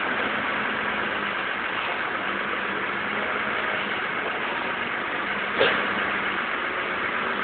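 Forklift engine running steadily with a constant low hum. A single sharp knock comes about five and a half seconds in.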